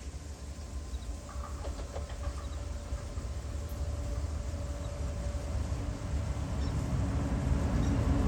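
Dubbed train sound effect: a low rumble that grows steadily louder as a train draws near, with a faint steady tone through the middle and a few light clicks about two seconds in.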